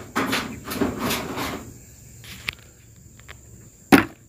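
Footsteps on dry dirt over the first second and a half, then a few faint ticks and one sharp knock near the end, over a steady high insect drone.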